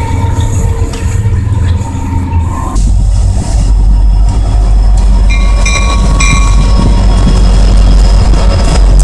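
Union Pacific diesel freight locomotives pulling in and passing close by, a loud deep rumble that swells suddenly about three seconds in as the lead units reach the platform. Two brief high-pitched tones sound about six seconds in.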